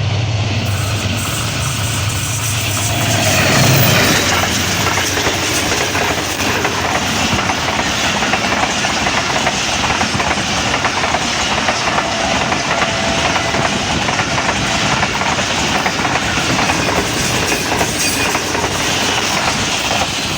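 AGE-30 diesel-electric locomotive passing at speed, its engine loudest about four seconds in, followed by passenger coaches rolling by with a steady clickety-clack of wheels over the rail joints.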